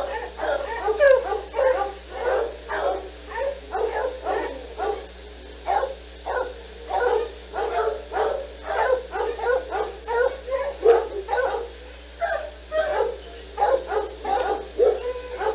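Senior dogs barking and yipping over and over, about two short barks a second with a few brief gaps. A steady low electrical hum runs underneath.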